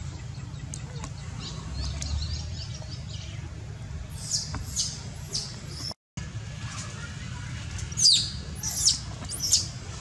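Short, high-pitched animal calls in two runs of about four, each call falling in pitch, the loudest one about eight seconds in, over a steady low rumble.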